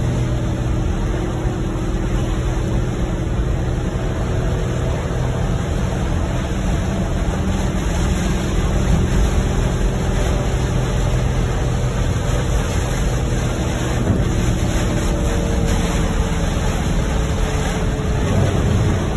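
Steady noise inside a moving car's cabin in heavy rain. Tyres hiss on the wet road and rain beats on the car, over a low road and engine rumble.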